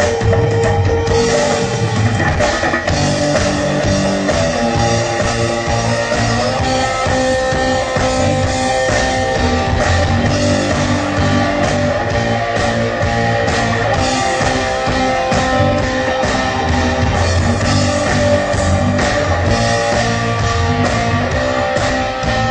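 Rock-style music played on drums and percussion with guitar, running steadily and loud.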